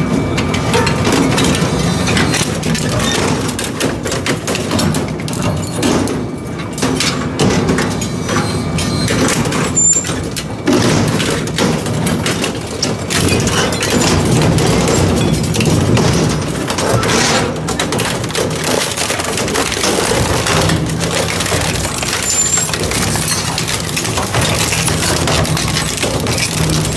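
Crushing machine running with a steady low hum, with irregular cracking and crunching as the material fed to it breaks.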